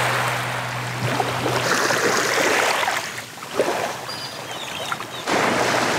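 Small waves washing up onto a sandy beach, the swash swelling and falling back in surges every few seconds.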